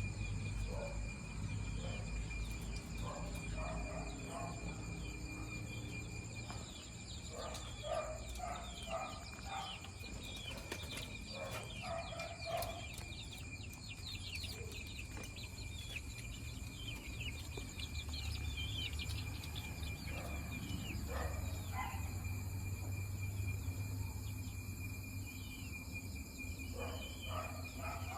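Roosting chickens making short, soft clucks and murmurs in scattered clusters, over a steady high insect trill of night crickets and a low hum.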